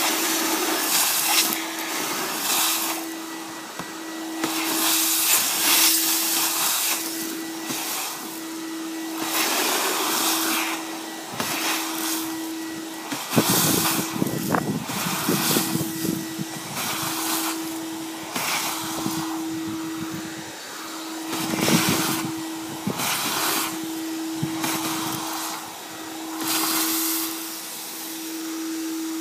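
GutterVac gutter vacuum sucking pine needles and debris out of a roof gutter through its pole hose nozzle: a steady rush of suction with a humming tone. The sound swells and dips as material is drawn in, with harsher bursts about halfway through and again about three-quarters in.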